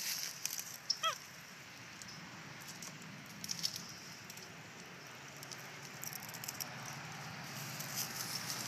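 A monkey gives one short, high squeaking call about a second in, over light clicking and rustling as treats are handled.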